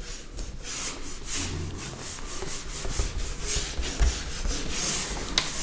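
A run of quick scratchy rubbing strokes on a teaching board, several a second, between stretches of a lecturer's talk.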